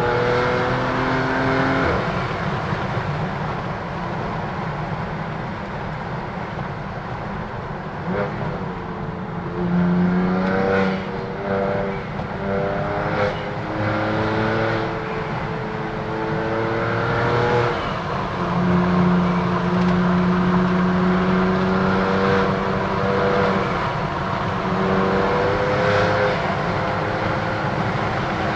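BMW F80 M3's twin-turbo inline-six, running through an M Performance exhaust with the secondary cats deleted, accelerating through the gears. The revs climb and then drop back at each upshift several times, with a quick run of shifts in the middle and longer pulls near the end.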